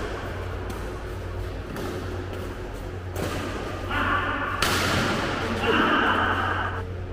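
Badminton rackets hitting a shuttlecock during a doubles rally: about four sharp hits, spaced a second or more apart, over a steady low hum.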